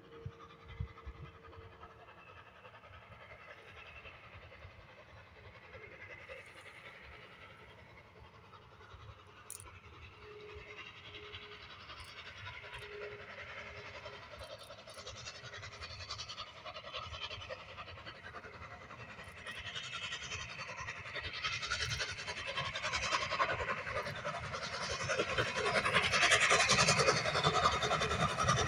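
LNER A4 Pacific steam locomotive's three-cylinder exhaust chuffing in rapid beats as it approaches. It grows steadily from faint to loud, and is loudest near the end.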